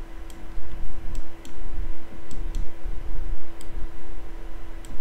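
Computer mouse clicking: about seven short, sharp clicks, several coming in quick pairs, over a steady low hum.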